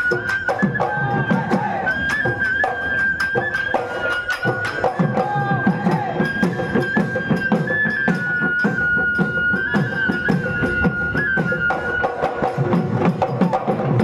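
Bihu folk music: a high wind instrument plays a held, stepping melody over steady dhol drumming and dense percussion strikes.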